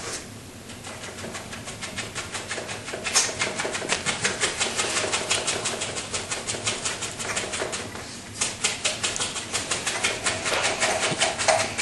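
Paintbrush tapping rapidly against a stretched canvas, dabbing on paint at about five or six taps a second. The tapping eases off briefly about eight seconds in, then carries on.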